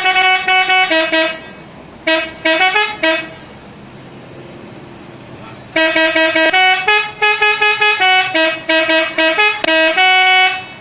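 Indonesian bus telolet horn, a set of tuned multi-tone horns playing a fast tune of short notes. It plays in bursts, with a pause of about two seconds midway before a longer run.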